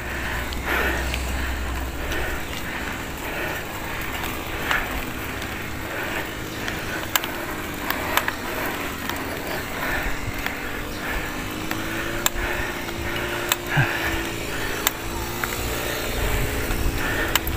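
Haro mountain bike's knobby tyres rolling on a concrete road, with a steady hum and scattered small clicks and rattles from the bike.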